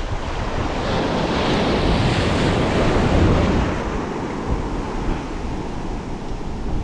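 Surf rushing and foaming over a shallow rocky reef flat close by, one wave swelling up over the first three seconds or so and then easing off, with wind rumbling on the microphone.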